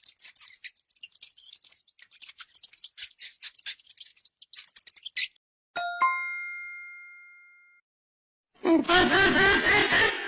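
A string of stock sound effects: about five seconds of rapid, irregular clicking, then a single bright bell ding that rings out and fades over about two seconds. Near the end a loud, wavering animal-like squeal begins.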